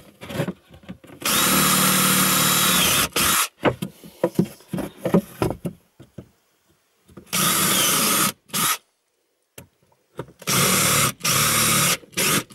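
Cordless drill running in several bursts of one to two seconds, with short taps of the trigger in between, as a large bit countersinks pre-drilled screw holes in a wooden batten. Small knocks and clatter sound between the bursts.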